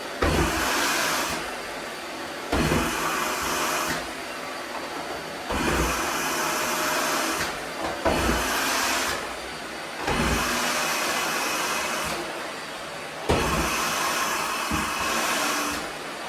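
Vacuum cleaner running and being pushed back and forth. Its sound swells and fades every two to three seconds, and a low knock often marks the start of a stroke.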